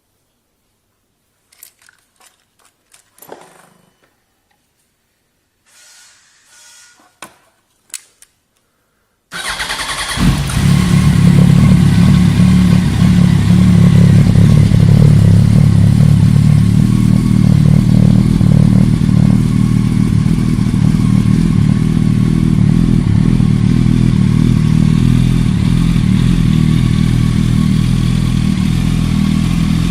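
2015 Yamaha R1 crossplane inline-four started through an aftermarket exhaust about nine seconds in, after a few faint clicks. It then runs steadily and loud, with a deep rumble.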